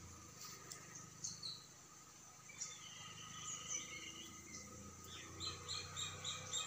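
Birds calling: scattered high chirps and short whistles, ending in a quick run of short repeated notes, about four a second, near the end.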